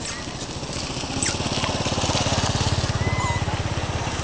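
A small petrol engine running with a fast, even pulse, growing louder over the first two seconds and easing slightly near the end. A few short high chirps sound over it.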